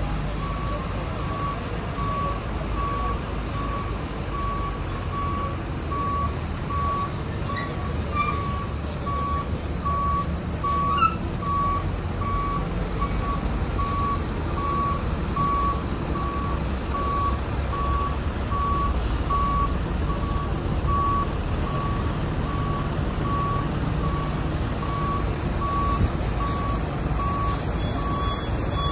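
Tractor-trailer backing up: its reverse alarm beeps steadily at one pitch, about one beep a second, over the low rumble of the truck's engine. A single sharp click sounds about eleven seconds in.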